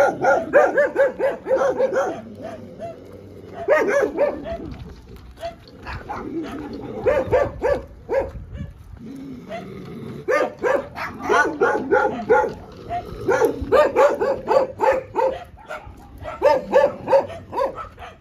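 Dog barking in quick volleys of about four or five barks a second, repeated several times with short pauses between.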